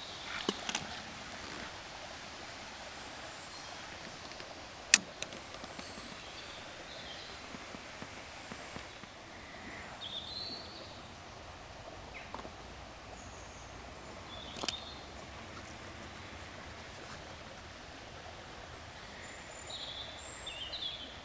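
Steady hiss of water running off a small river weir, with a few short high bird chirps and a handful of sharp clicks, the loudest about five seconds in.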